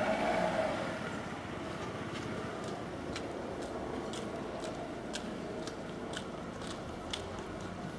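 Street noise with steady traffic, swelling briefly in the first second as a vehicle passes. From about three seconds in, light ticks come roughly twice a second over it.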